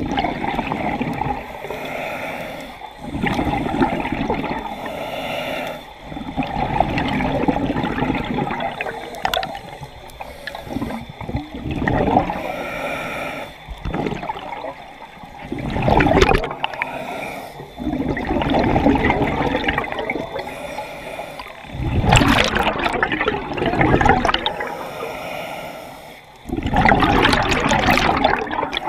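Scuba regulator breathing, recorded underwater: a quieter hiss on each inhale, then a loud gurgling rush of exhaled bubbles, repeating about every four to five seconds.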